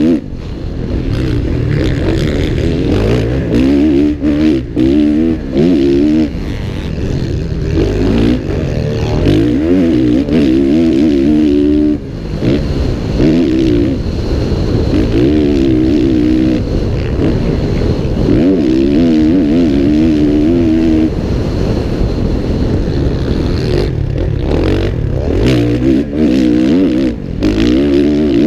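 Kawasaki motocross bike's engine under hard riding, heard from on the bike: the pitch climbs and drops over and over as the throttle is opened and shut through a lap, with short lifts off the throttle.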